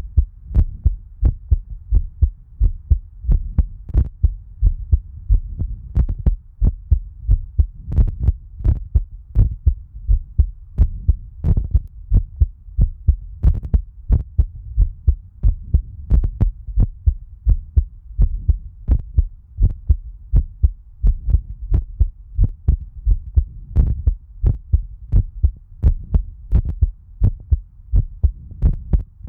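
Human heartbeat recorded up close: an even, steady rhythm of deep thumps, a few each second, over a continuous low hum.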